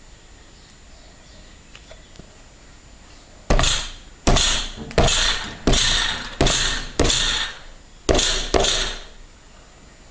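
A hand slapping into a thick cornstarch-and-water mix (oobleck) in a plastic bowl, the mix going firm under each blow. Eight sharp slaps come roughly two-thirds of a second apart, starting a few seconds in, each fading within about half a second.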